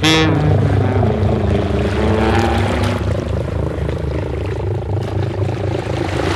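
Synthesized propeller-plane engine: a low throbbing drone that starts suddenly, with pitched tones sliding downward over the first few seconds.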